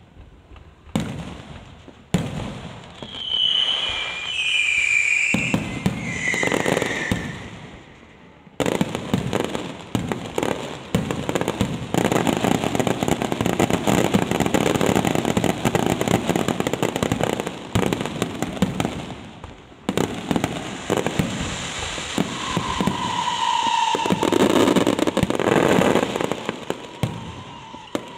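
Fireworks going off in rapid bangs and crackles that merge into a dense, continuous barrage from about 9 to 20 seconds in. A few falling whistles cut through the bangs near the start and again later.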